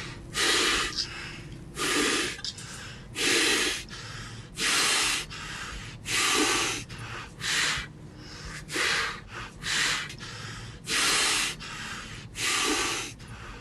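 A person breathing heavily and loudly: about ten noisy breaths, each under a second, coming roughly every second and a half.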